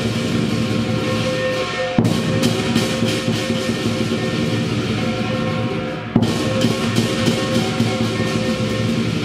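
Music with drums and steady held notes, broken off sharply and resuming about two seconds in and again about six seconds in.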